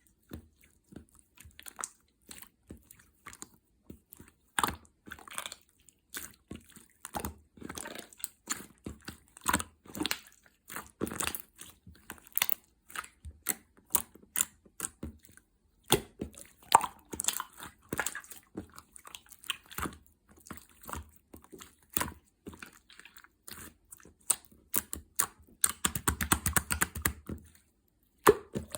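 Fingers pressing and squishing slime topped with clay 'cheese', making many short sticky clicks and pops, with a dense crackling stretch near the end.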